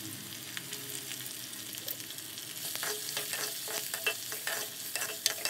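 Chopped onions sizzling in hot oil in a clay kadai. From about three seconds in, a steel spatula stirs them, scraping repeatedly against the pot over the steady sizzle.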